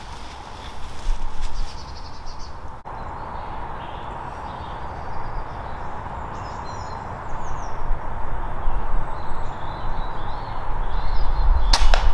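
Woodland background with birds calling, then near the end a single sharp crack: a silenced Reximex Pretensis .22 PCP air rifle firing.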